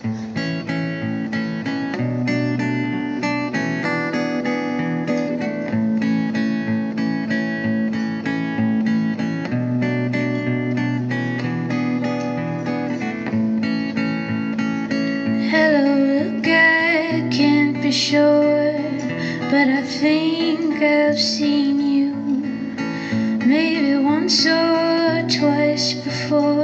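Acoustic guitar played through a small acoustic PA amp, starting abruptly with a chordal intro. About fifteen seconds in, a woman's singing voice comes in over the guitar.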